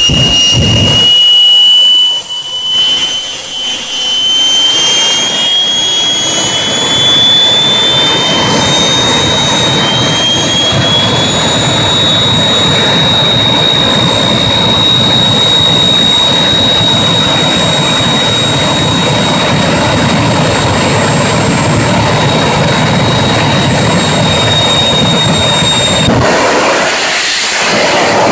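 Jet engines of jet-powered drag-racing vehicles running hard: a loud rushing exhaust with a high turbine whine that climbs slowly in pitch, then holds steady. The whine drops away a couple of seconds before the end.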